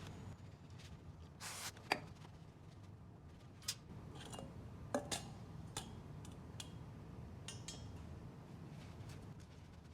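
Scattered light metallic clicks and clinks of hand tools and small parts being handled during motorcycle repair work, over a low steady hum, with a brief hiss about a second and a half in.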